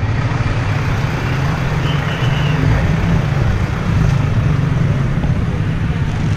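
Heavy diesel engine running with a steady low rumble, and a brief high squeal about two seconds in.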